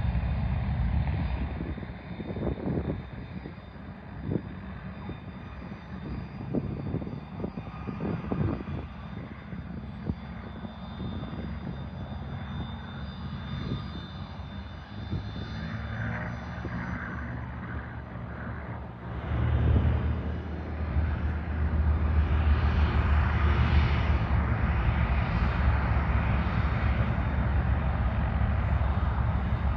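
Cessna airplane engine running, with a few irregular low thumps in the first several seconds. About two-thirds of the way in it rises sharply to a loud, steady full-power run, as for the takeoff roll.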